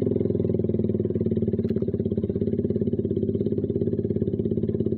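Suzuki Satria FU 150's single-cylinder four-stroke engine running at low revs through a Kau Mahachai racing exhaust, giving a loud, fast, even pulsing exhaust note.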